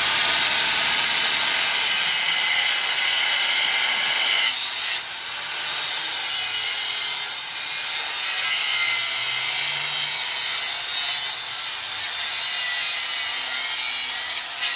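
Angle grinder with a cut-off wheel cutting through the car's steel front structure: a loud, steady, high-pitched grinding that eases off briefly about five seconds in, then bites again.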